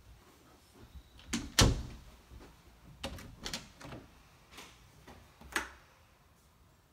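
Panelled interior closet doors being handled, opened and shut: a string of sharp knocks and clunks, the loudest about a second and a half in and a last one near the end.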